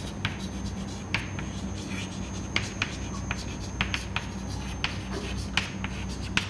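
Chalk writing on a chalkboard: a series of short, sharp taps and scratches as the letters are formed, over a steady low hum.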